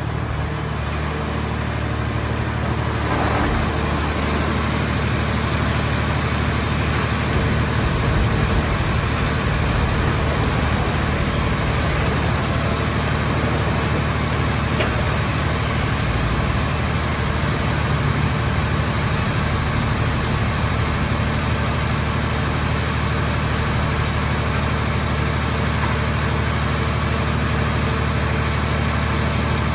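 Power unit of a mobile hydraulic scrap car-body baler running steadily with a constant low hum, growing a little louder a few seconds in.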